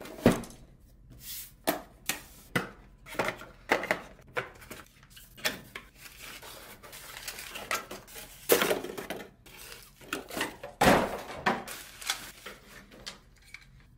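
Cardboard packaging being handled and a soft white wrapping being unfolded: a string of sharp taps and knocks of cardboard, with longer bursts of crinkly rustling, the loudest twice in the second half.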